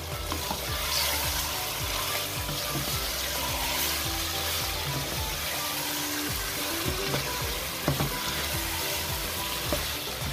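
Chicken pieces frying in spice paste in a stainless steel pot with a steady sizzle, stirred with a wooden spoon that scrapes and knocks against the pot now and then.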